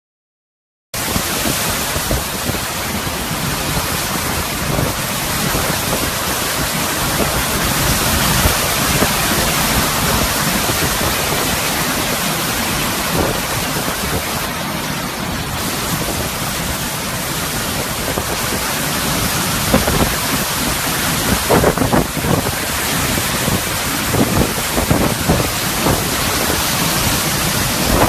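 Hurricane-force wind and driving rain rushing steadily against the microphone, starting about a second in, with stronger gusts buffeting the microphone in the later part.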